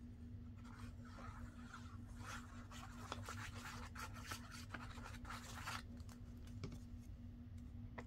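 Paper scratching and rustling as the fine tip of a liquid glue bottle is run over the back of a paper card, a quick series of short scratchy strokes lasting about five seconds, then a couple of soft clicks near the end.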